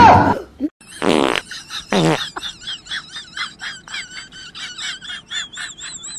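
A tabby Scottish Fold cat vocalising: a loud burst at the start, two louder calls about one and two seconds in, then a fast run of chirping chatter at about five chirps a second.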